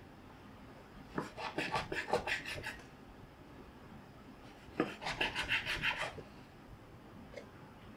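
Chef's knife sawing through a skin-on raw salmon fillet onto a wooden cutting board: two bouts of quick back-and-forth strokes, the first about a second in and the second near five seconds.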